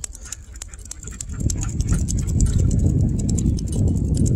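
Wind buffeting the microphone and tyre rumble from a moving bicycle on asphalt, swelling about a second in as it picks up speed. Over it comes rapid light clicking, typical of a trotting dog's claws on the pavement.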